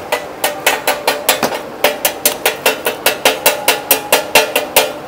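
Rapid, even hammer strikes on metal, about four a second, each leaving a short metallic ring.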